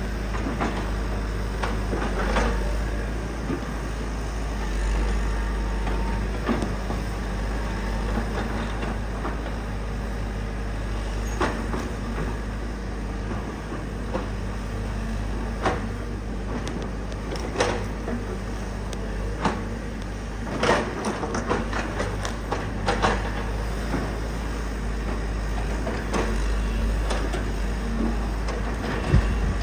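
Excavator's diesel engine running steadily, with irregular sharp knocks and clanks from the machine working debris on the site.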